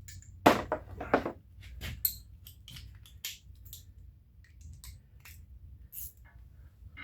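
Irregular metallic clicks and clinks of hand tools and hardware, with two louder knocks in the first second or so and lighter clicks after.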